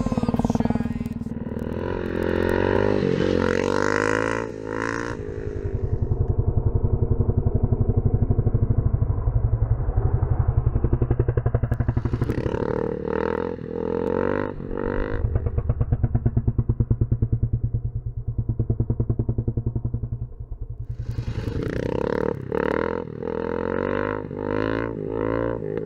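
KTM 620 single-cylinder motorcycle engine revving hard in repeated bursts as the bike wheelies past, three times: about two seconds in, after about twelve seconds and near the end. In between it runs at lower revs with a steady pulsing beat.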